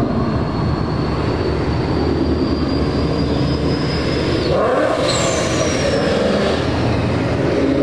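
Ford Mustangs driving past, their engines running with a continuous rumble. A high, steady whine sits over the engines and cuts off about halfway through, followed by a short falling whine.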